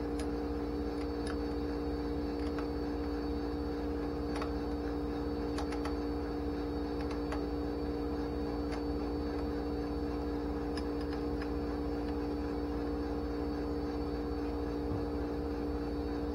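A steady machine hum with a constant two-note drone runs throughout. Over it come scattered faint clicks and ticks of a wrench working the 5/8 fuel line fitting on a Holley 4150 carburetor.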